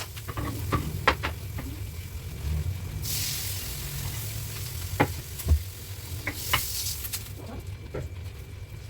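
Chicken frying in a pan while it is stirred, the spatula clicking and knocking against the pan a number of times. A louder burst of sizzling comes about three seconds in.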